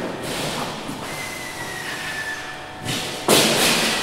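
Pneumatic rivet gun hammering rivets into the aluminium skin of a Lancaster wing leading edge, a rapid loud rattle that starts about three seconds in after a single short knock. Before it, steady workshop noise with a thin high whine.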